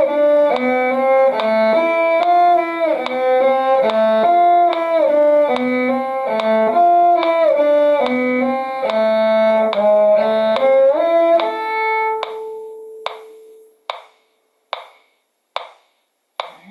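Violin playing a fast duet passage over a lower string line, with a metronome clicking steadily beneath. The music ends on a held note about twelve seconds in, leaving the metronome ticking alone, a little faster than once a second.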